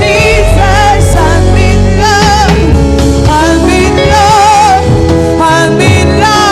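Spontaneous worship music: a voice singing long, wavering notes with vibrato over sustained low chords from a keyboard or bass.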